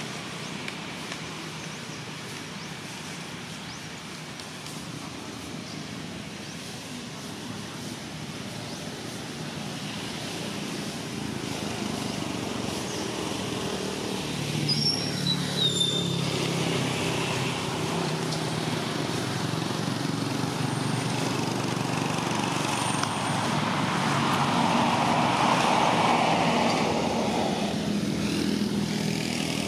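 Motor vehicle engine running with traffic noise, growing louder after about ten seconds. A few short high chirps come near the middle.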